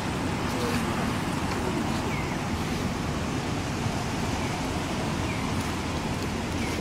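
Steady low rumble and hiss of outdoor background noise, with a few faint short chirps now and then.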